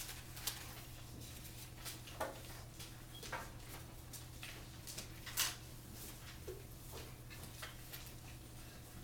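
Quiet classroom room tone: a steady low hum with scattered light clicks and rustles, the sharpest click about five and a half seconds in.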